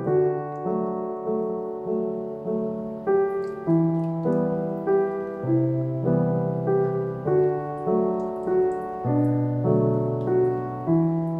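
Gentle piano background music, a steady run of notes and chords, with faint light clicks of a silicone whisk against a glass bowl from about three seconds in.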